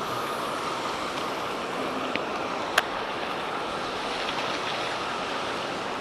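Steady rush of water pouring through a dam spillway, with one sharp click nearly three seconds in.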